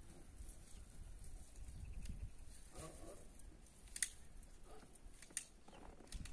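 Faint short animal calls, heard twice, with a couple of sharp clicks and a low rumble underneath.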